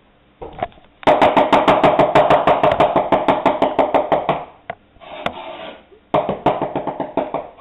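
Kitchen knife cutting rapidly against a cutting board, about eight quick strokes a second, in a long run and then a shorter second run after a brief pause.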